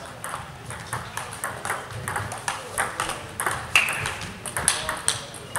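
Table tennis balls clicking off bats and tables, several rallies overlapping in quick, irregular ticks, with a short high squeak about four seconds in.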